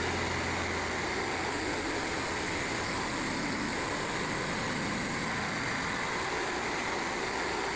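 Frontier OS27 portable band sawmill running with a steady, even noise; a low hum underneath fades out about a second in.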